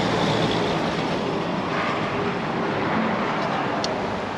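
Steady rushing noise of vehicles passing on a highway bridge.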